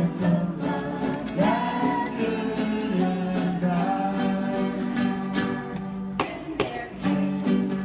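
Music with strummed plucked strings, guitar or ukulele, playing a steady rhythm.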